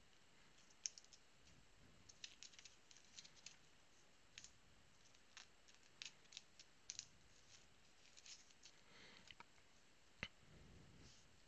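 Faint, irregular clicks and light scrapes of trading cards being handled, with a slightly sharper click near the end.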